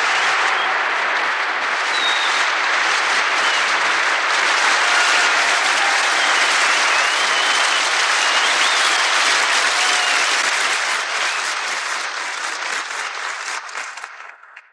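Television audience applauding and cheering, a dense, steady clapping that dies away over the last few seconds and then cuts off.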